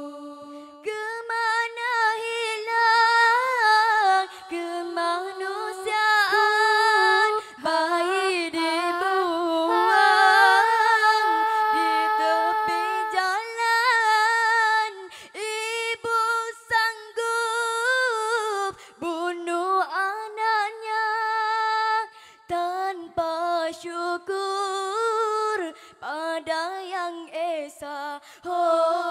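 Female nasyid vocal group singing unaccompanied in harmony, long melismatic lines that rise and fall with no clear words.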